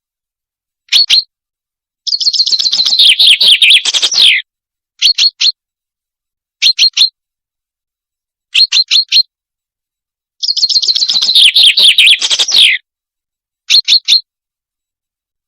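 A songbird known in Arabic as al-Salanj, recorded for use as a hunting lure call. Short groups of two to four quick high chirps alternate with two longer rattling trills that drop in pitch at the end. There are gaps of silence between the phrases.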